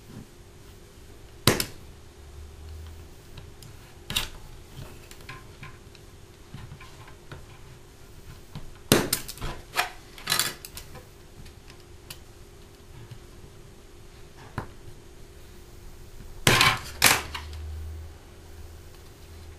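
Sharp, scattered clicks and clatters of a hobby knife, steel ruler and plastic kit parts being handled on a cutting mat: one click a second and a half in, another at about four seconds, a quick run of several around nine to ten seconds, and two close together near the end.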